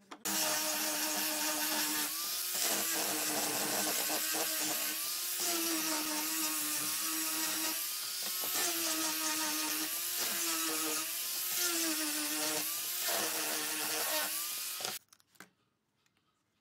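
Electric power tool motor running continuously, its pitch dipping and recovering every second or two as it is loaded against the wood, over a dense hiss of the cutting or sanding.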